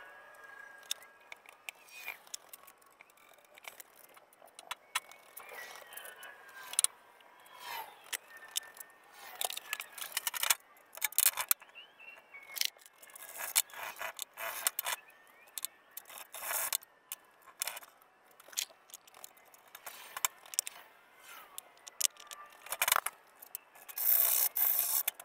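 Metal clinks, taps and scrapes of hand work on the wheels and axles of small poly lawn carts, as rims are taken off and fitted. Near the end comes a brief loud hiss.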